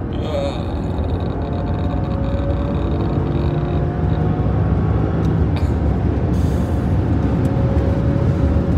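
Inside the cabin of a BMW 760 with its V12 under hard acceleration: engine drone with road and wind noise, growing steadily louder.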